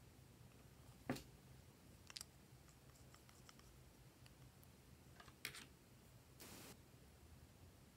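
Faint, sparse clicks and taps of small plastic stick tubes being handled, with a sharp click about a second in, a few more around two and five seconds, and a short scrape near the end.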